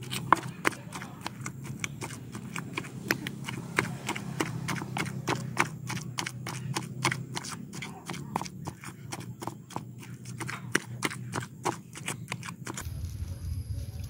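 Pestle pounding a wet fish-and-spice paste in a stone mortar: quick, irregular knocks, several a second, stopping shortly before the end.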